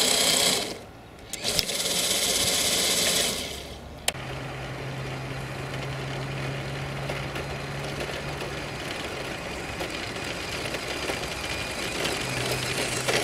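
Electric motor and gearbox of a Tamiya Toyota Hilux 4x4 radio-controlled truck whirring as it drives over riverbed stones. There are two loud bursts of whirring in the first three seconds and a sharp click about four seconds in, then a quieter, steady whir with a low hum underneath.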